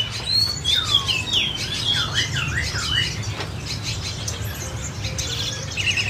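Several small caged songbirds chirping and whistling, with quick sweeping and looping notes for the first three seconds, then fewer calls until a few more chirps near the end, over a steady low rumble.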